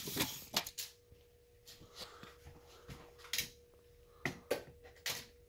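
Scattered light clicks and knocks of a handheld measuring tool being handled, with a faint steady hum underneath from about a second in.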